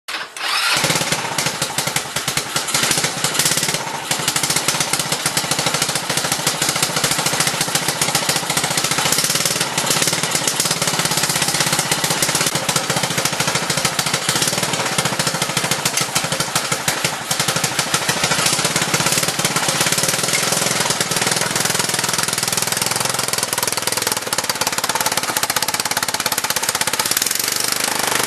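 Mini monster truck's small engine running loudly with a fast, rattling beat, starting about half a second in.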